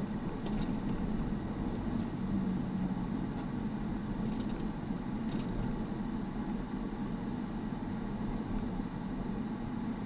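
Steady low rumble of a car's engine and tyres heard from inside the cabin while driving in slow city traffic.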